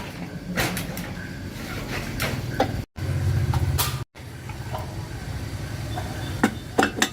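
Scattered metallic clinks and knocks of workshop tools on metal over a steady low machine hum, broken twice by short dropouts to silence.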